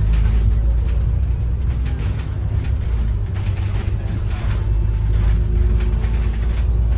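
Interior of a moving double-decker bus heard from the upper deck: a steady low engine and road rumble, with faint light rattles from the bus body.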